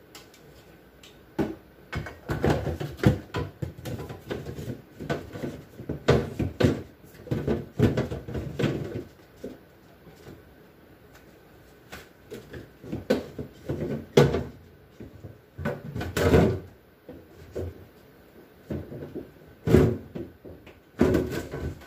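Irregular knocks, clatters and scraping as refrigerator shelves, bins and containers are handled and set in place, with a quiet spell near the middle.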